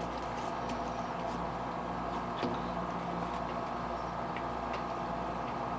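Faint light clicks and ticks of small plastic paint and resin bottles and a mixing cup being handled on a workbench, over a steady background hum.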